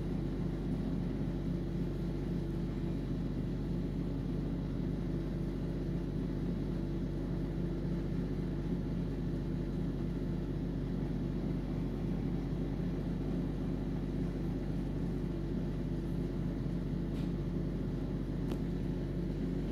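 A steady low hum or rumble with no speech or music, and two faint clicks near the end.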